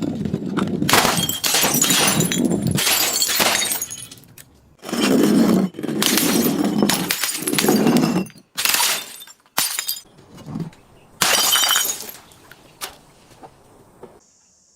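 Glass being crushed and broken: several loud bouts of crunching and shattering, then a few shorter sharp cracks, stopping shortly before the end.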